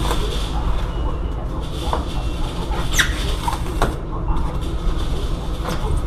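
A steady low rumble with a few sharp knocks and clicks of hand-tool work on a refrigerated trailer's wall. The sharpest knock comes about three seconds in.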